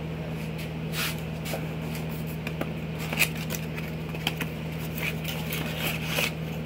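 A small cardboard box being handled and opened: scattered scrapes, rustles and clicks of the flaps and cardboard insert, over a steady low hum.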